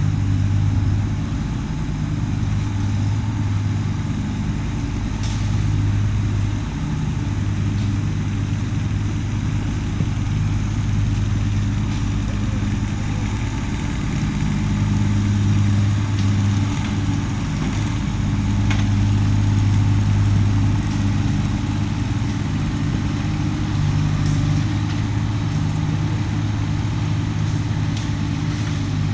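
A large engine running steadily at an even, low idle, with a few faint clicks over it.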